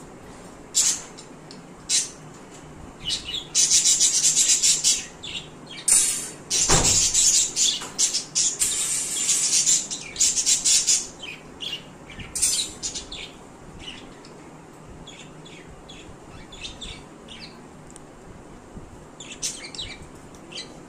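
Pet birds chirping in quick, high bursts, busiest from about three to thirteen seconds in and sparser after. A single thump comes about seven seconds in.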